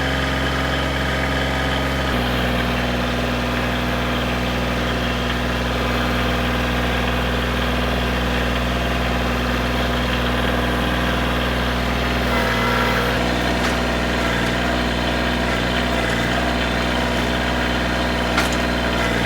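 Koiti DS 3510 compact tractor's diesel engine running steadily, with a slight change in engine speed about two seconds in.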